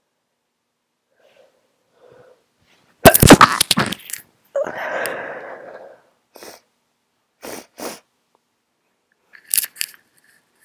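A stifled sneeze from a person with a head cold: a sharp, loud cluster of bursts about three seconds in, followed by a breathy noise lasting about a second and a half. A few short clicks follow near the end.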